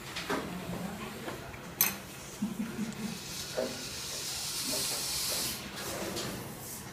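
A steady hiss of air or spray lasting about two seconds, starting about three seconds in, preceded by a single sharp click.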